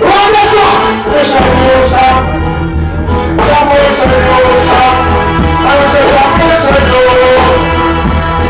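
Loud reggae/dancehall music: a voice singing over a band with a steady beat.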